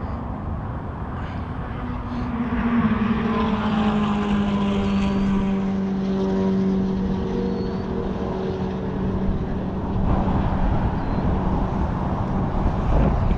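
A passing aircraft's engine drone swells about two seconds in, then slowly sinks in pitch and fades over several seconds.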